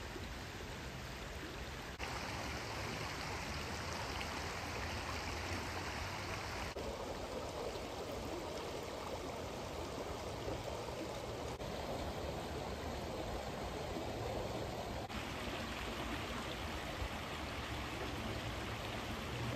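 Steady rush of water from a creek waterfall, with no distinct events. Its tone shifts abruptly several times, a few seconds apart.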